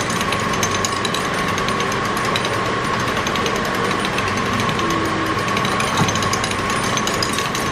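Hand-cranked souvenir penny-press machine being turned: its gears grind steadily with rapid clicking as the rollers press a penny into an elongated souvenir coin.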